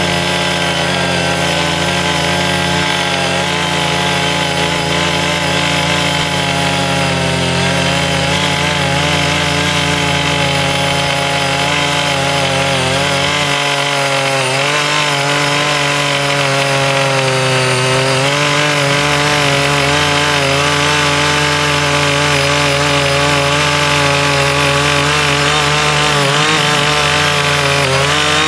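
Small single-cylinder petrol engine of a CY50 mini rotary tiller running at high speed while its tines churn hard, uncultivated soil. The engine note is steady, with slight dips in pitch a few times as the tines dig in under load.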